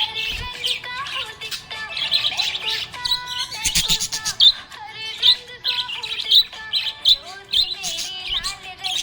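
Budgerigar chirping and warbling in a rapid, continuous stream of short high chirps.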